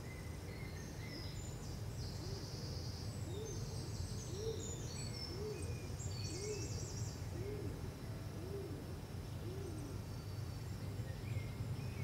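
Greenfinch nestlings begging with high, thin chirping calls, strongest in the first half. Behind them a low hoot is repeated about once a second, seven times, over a steady low hum.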